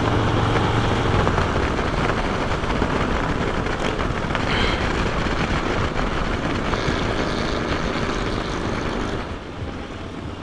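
Harley-Davidson motorcycle's V-twin engine running at road speed under heavy wind rush, dropping in level about nine seconds in.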